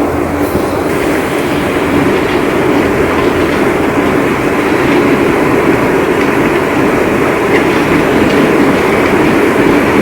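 Heavy rain pouring steadily, a dense roar that grows slightly louder.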